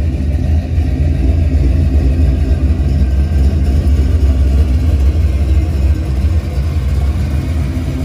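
1955 Chevy Bel Air's 383 V8 running through its newly built exhaust: a steady, deep exhaust rumble at low speed as the car moves off, with no revving.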